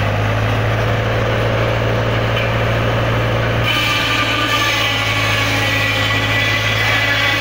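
Tractor engine running steadily to drive a circular saw bench, with a strong low hum. About halfway through a higher whine joins as the blade starts cutting into a log.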